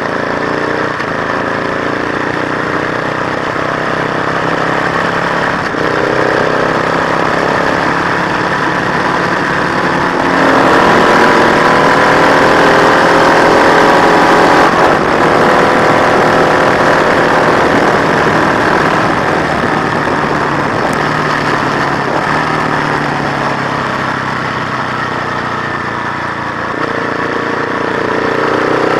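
Matchless G50 single-cylinder four-stroke racing engine under hard acceleration, its pitch rising in long sweeps and dropping briefly at each upshift. Near the end it eases off for a few seconds, then picks up and climbs again.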